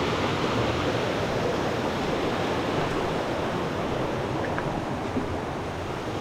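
Stream water flowing steadily, an even rushing noise.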